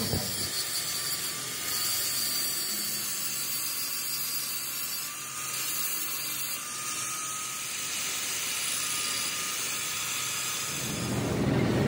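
Handheld angle grinder with an abrasive disc grinding steel on a crankshaft web, dressing down the weld repair of a crack. The sound is a steady high-pitched grinding hiss over a faint, slightly wavering motor whine.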